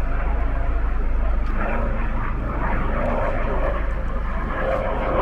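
A steady low rumble, with faint voices of people talking here and there.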